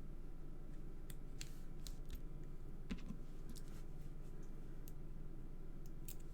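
Scattered small clicks and paper ticks as adhesive stars are peeled from their backing and pressed onto a card, the sharpest click about three seconds in. A steady low hum runs underneath.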